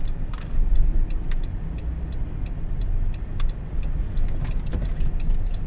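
Minivan being driven through a parking garage, heard from inside the cabin: a steady low engine and road rumble with a few faint ticks.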